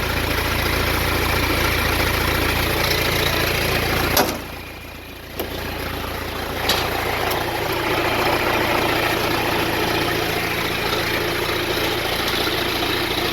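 Engine idling steadily. About four seconds in a sharp click is followed by a quieter second or so, then two more clicks, and the idling carries on.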